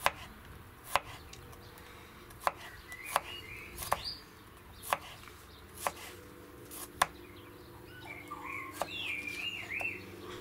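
Kitchen knife slicing a garlic clove on a wooden cutting board: slow, separate taps of the blade hitting the board, about one a second.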